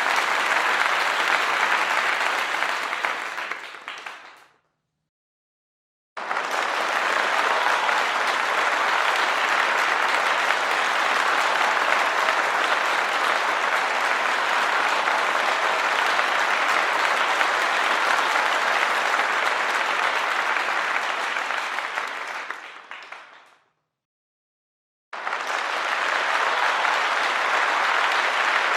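Three separate rounds of crowd applause, dense clapping, with dead silence between them: the first fades out about four seconds in, the second starts suddenly about two seconds later and runs steadily before fading away about seventeen seconds on, and the third starts suddenly near the end.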